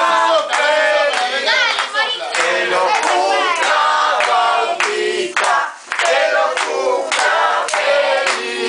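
A group of children and adults singing a birthday song together, clapping along.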